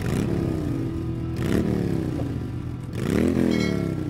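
Motorcycle engine revved three times, each rev climbing quickly and then falling slowly back.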